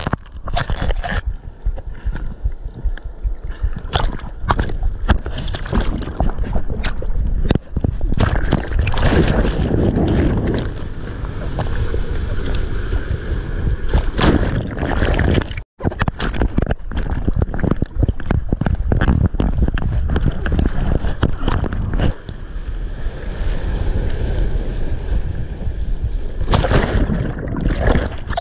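Water rushing and splashing against a handheld action camera as it dips in and out of the surf, with wind buffeting the microphone and many sharp knocks of water on the housing. It drops out for an instant about halfway through.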